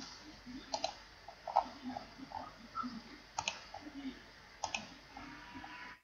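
Computer mouse clicks, each a quick press-and-release pair, three times, with fainter ticks between.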